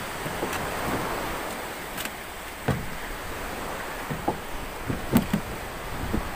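Sea waves washing around a small boat, with wind on the microphone, and a handful of sharp knocks and thuds in the second half, the loudest just after five seconds in, as an iron-framed wire-mesh fish trap is wrestled against the boat's side.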